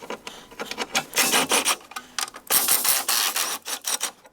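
Hand ratchet wrench clicking in two rapid bursts as a bolt is turned on the car's engine.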